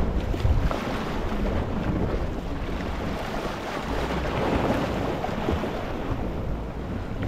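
Small sea waves washing over a rocky shore: a steady rush of water that swells a little around the middle, with a low rumble underneath.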